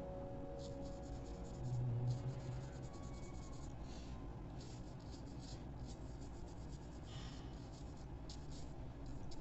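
Soft, short strokes of a flat art brush rubbing over drawing paper, blending pencil graphite, repeating irregularly.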